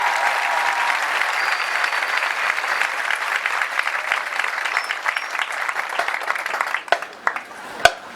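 Crowd applauding and cheering in the stands, the clapping thinning out near the end, with a few sharp knocks at the very end.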